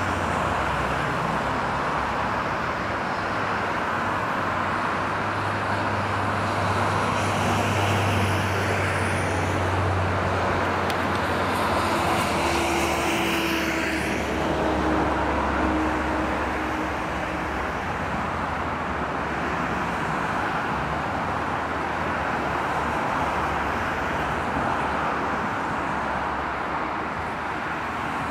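Steady road traffic noise, with one louder engine passing by in the middle, its hum building and then fading away.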